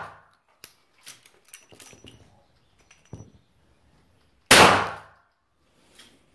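Spent .44 Magnum brass cases clinking and knocking as they are pushed from a revolver's open cylinder and land on the bench, a handful of light clicks over a few seconds. About four and a half seconds in there is a single loud bang with a short ringing tail.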